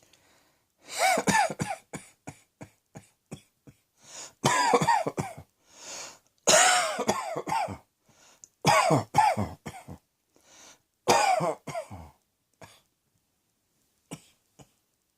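A person coughing in repeated fits: about five loud, rough bouts, each trailing off into a run of shorter coughs.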